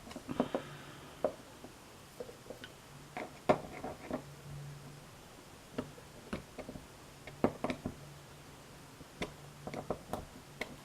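Scattered small clicks and light knocks of metal lock parts and tools being handled while a pin-tumbler lock core is worked open, the sharpest knock about three and a half seconds in, over a faint low hum.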